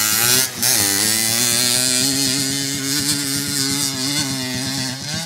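Trail motorcycle engine revving hard as the bike climbs a steep grassy slope. The engine note dips briefly about half a second in, then picks up again and holds high.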